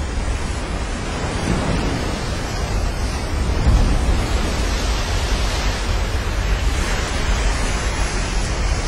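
Giant ocean wave breaking, a steady rushing wash of whitewater, with wind buffeting the microphone as a deep, unsteady rumble underneath.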